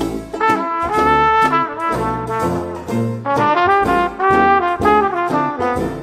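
Instrumental 1920s New Orleans-style jazz, with trumpet and trombone playing melody lines over a bass line and a steady beat.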